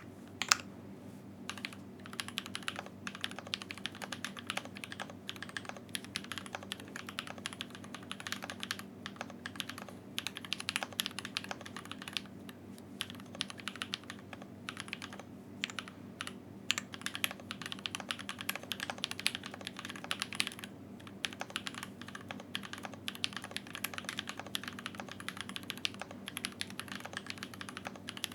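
Typing on a custom mechanical keyboard, a KBDFans MAJA with a brass plate, lubed and filmed Grexer Black linear switches and PBT keycaps. It is a continuous run of irregular keystrokes with a few short breaks.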